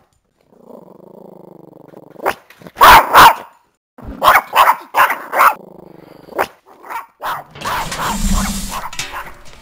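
A dog growling low, then barking loudly in a string of barks, the two loudest about three seconds in, with a rush of noise near the end.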